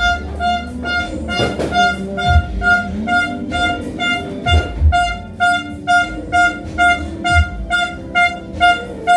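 Loud music played through a speaker and subwoofer during a sound check: a fast repeating high note about three times a second over heavy bass hits.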